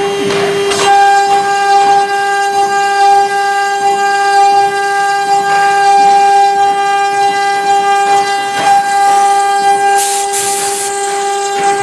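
CNC router spindle running with a steady, high whine while machining MDF, over a noisy cutting haze. A brief burst of hiss comes about ten seconds in.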